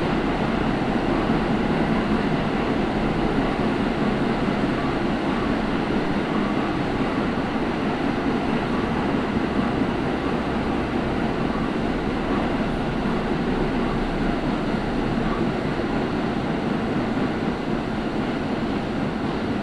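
Steady running noise of an R46 New York City subway car in motion, heard from inside the car: an even rumble of wheels on the rails.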